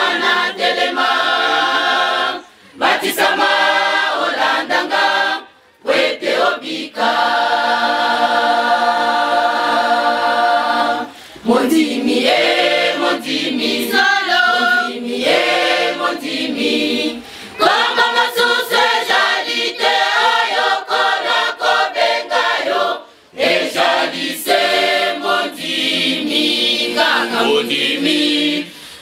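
Choir of women and girls singing unaccompanied in several parts, in phrases with brief pauses between them.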